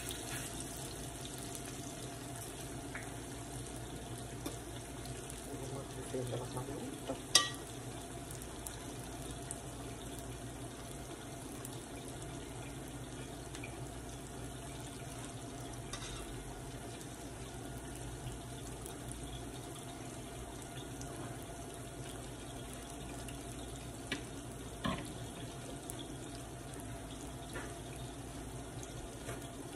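Slices of ripe plantain deep-frying in a pan of hot oil: a steady sizzle. A single sharp knock comes about seven seconds in, and two lighter ones come near the end.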